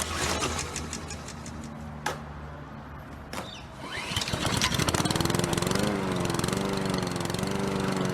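A small lawn mower engine starting: a few sharp clicks, then the engine catches about four seconds in and runs steadily with a slightly wavering pitch.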